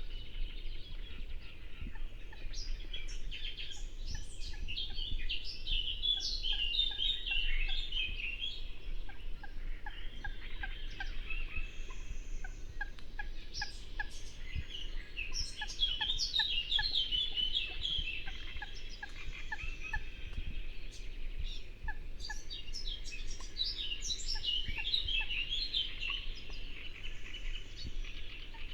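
Songbird singing in fast, chattering phrases that come back about every nine seconds, with a series of short, lower repeated calls between them and a steady low rush of the river underneath.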